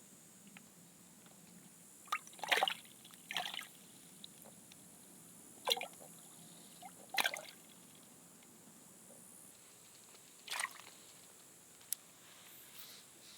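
Several short wet sounds of water, small drips and splashes, spaced irregularly a second to a few seconds apart.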